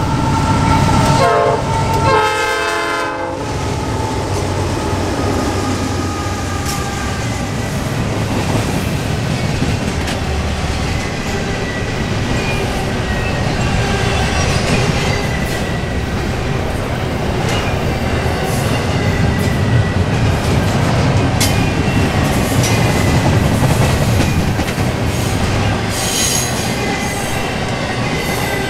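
The Nathan P5 five-chime horn of a Norfolk Southern GE AC44C6M locomotive sounds a short blast and then a longer one in the first three seconds as the diesel locomotives pass. Then a double-stack intermodal container train rolls by with steady wheel-on-rail noise, scattered clicks of wheels over the rail joints and a faint thin wheel squeal.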